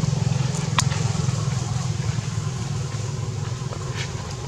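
Steady low drone of an idling engine, with a sharp click about a second in.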